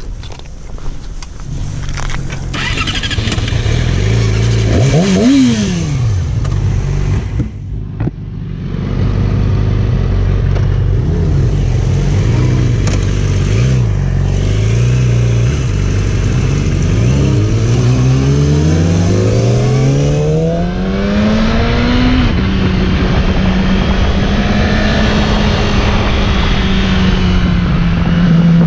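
Yamaha R6 inline-four sport-bike engine running: a quick rev rising and falling about five seconds in, a few short throttle blips, then a long climb in pitch as the bike accelerates, settling into a steady higher note, with wind rushing past.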